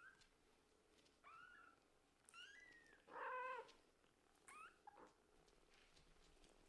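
Scottish Fold–British Shorthair kittens mewing: about six short high calls that bend up and down in pitch, the loudest and longest about three seconds in, with a quick cluster near five seconds.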